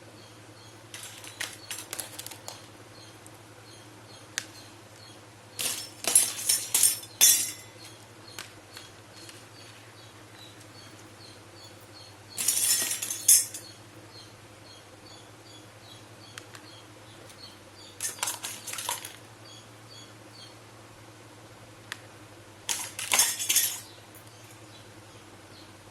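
Small toy kitchenware pieces clinking and clattering as they are handled, in five short bursts of quick clicks.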